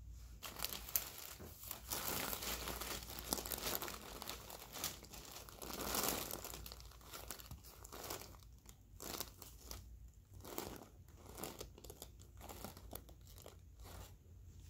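Crinkling and rustling of the plastic sheet covering the procedure table, right next to the microphone: a dense, continuous crinkle for the first half, then broken into separate short rustles.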